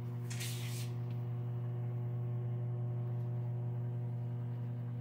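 Steady low electrical hum with a few fainter, higher overtones, and a brief hiss about half a second in.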